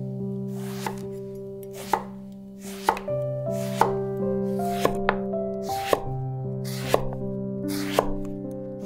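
Kitchen knife slicing an eggplant into rounds on a wooden cutting board: about one cut a second, each a short swish through the flesh ending in a sharp tap of the blade on the board.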